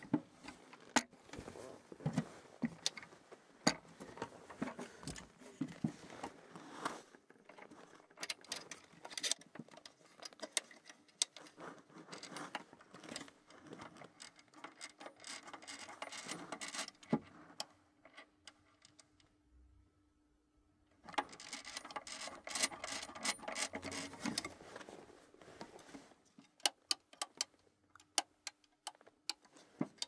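A boxy vintage film device handled close to the microphone: quick, irregular clicks, taps and rubbing of its plastic and metal parts, stopping for about three seconds a little past the middle. A faint steady hum sits under parts of the second half.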